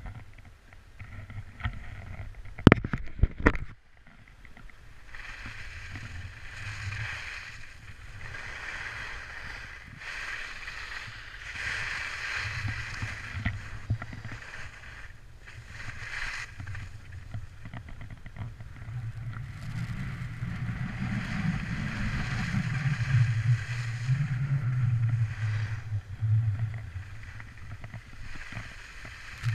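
Skis sliding over packed snow, a scraping hiss that swells and fades with each turn, with wind buffeting the microphone in a low rumble that grows stronger later on. A few sharp knocks about three seconds in are the loudest sounds.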